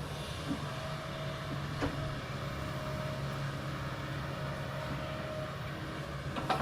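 Kobelco excavator's engine running steadily with an on-and-off higher tone over it, and a few sharp knocks: one about half a second in, one just before two seconds, and the loudest near the end.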